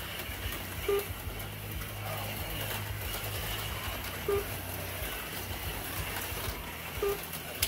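HO-scale slot cars running on the track: a steady whir of small electric motors over a low hum, with a short electronic beep three times, about every three seconds.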